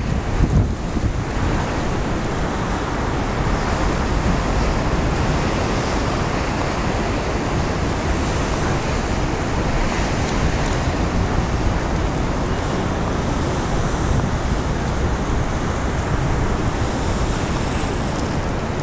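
Wind-driven storm waves on a large lake, breaking and churning in a steady loud rush of surf. Strong wind buffets the microphone with a low rumble, most at the start.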